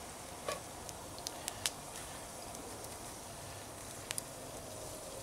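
Campfire crackling faintly: a few short, sharp pops scattered over a low steady hiss.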